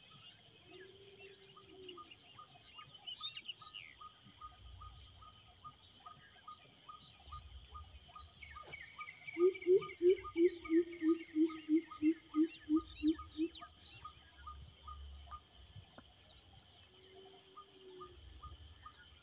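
Outdoor evening chorus of crickets and other insects: a steady high buzz with birds calling over it, including a quick ticking call repeated about four times a second. In the middle, the loudest sound is a bird's run of about a dozen deep notes in quick succession, falling slightly in pitch.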